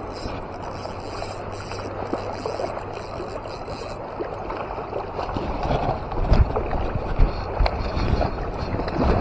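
River water rushing steadily, with dull low thumps from about six seconds in.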